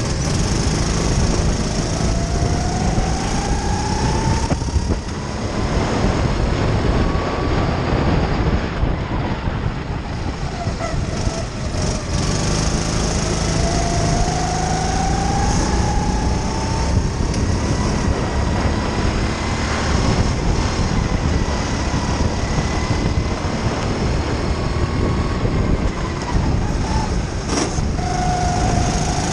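Sodikart RT8 rental kart's single-cylinder four-stroke engine heard onboard at racing speed, its pitch rising steadily as it accelerates out of corners, twice, and dropping back as it lifts. A steady rush of wind and road noise runs underneath.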